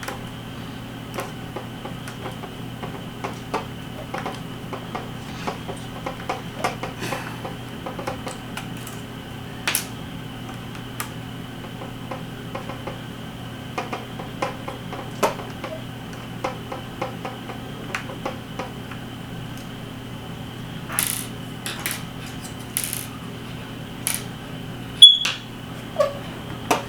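Scattered small clicks and taps of a screwdriver and plastic propellers being handled while a drone's propeller screws are taken out, with a sharper click near the end. A steady hum runs underneath.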